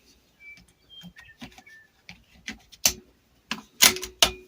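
Light mechanical clicks and knocks from handling a bolt-action rimfire rifle, getting louder about three and a half seconds in with three sharp knocks close together.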